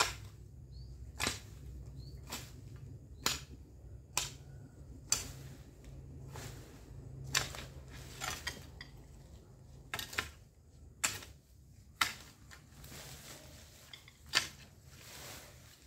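Garden hoe chopping into weedy soil again and again, one sharp strike about every second, over a low steady hum.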